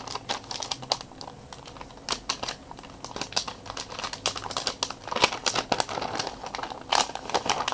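Thin plastic wrapping crinkling and crackling as it is handled and pulled off a tablet, in an irregular run of small crackles and clicks that thicken about five seconds in and again near the end.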